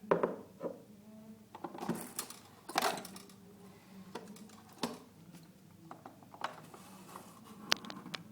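Irregular clicks, knocks and short clatters of a Nespresso Pixie coffee machine being handled, over a low steady hum.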